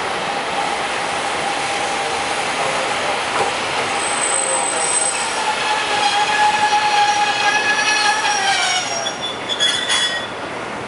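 Chikuho Electric Railway articulated tram pulling into the station on a curve: a steady high-pitched squeal from the running gear, joined by higher whining tones that grow louder as it approaches. All of them drop in pitch and die away as the tram slows to a stop about nine seconds in, followed by a few sharp clicks.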